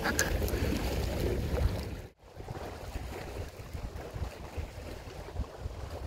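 Wind buffeting the microphone over small sea waves washing against breakwater rocks, a steady low rumble and hiss that cuts out briefly about two seconds in.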